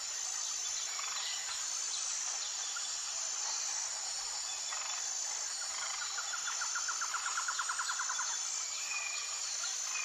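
Wild birds calling over a steady, high-pitched hum of insects: scattered short chirps, then a fast, even trill about six seconds in that lasts around two and a half seconds.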